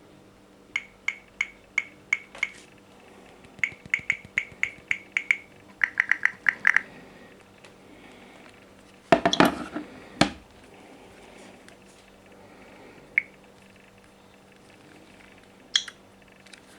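Samsung phone alarm beeping: short high beeps in groups, the third group coming faster, followed about nine seconds in by a loud clatter and later a couple of single clicks.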